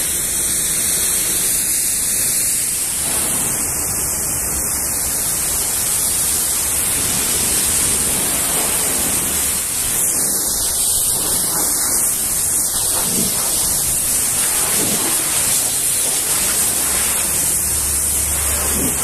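Pressure washer's water jet hitting the side of a truck cab, a steady hiss of spray as the soap foam is rinsed off.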